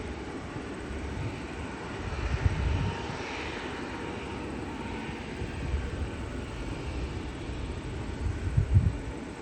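Jet airliner flying close by, its engine noise a steady rush that swells to a peak about three to four seconds in and then slowly eases, over an uneven low rumble.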